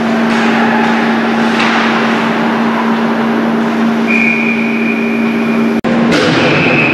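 Steady noise of an ice hockey rink during a game, with a constant low hum. A steady high tone comes in about four seconds in, the sound drops out for an instant near six seconds, and the tone carries on after it.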